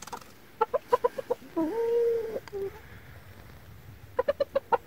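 Chicken clucking: a run of about six quick clucks, then one longer drawn-out call about two seconds in, then another fast run of clucks near the end.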